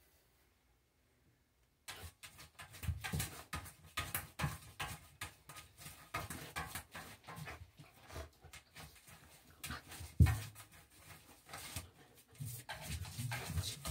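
A puppy's claws scratching and scrabbling at the floor of a dry bathtub, digging at it, with bumps of its body against the tub. It starts about two seconds in, and a sharp thump about ten seconds in is the loudest sound.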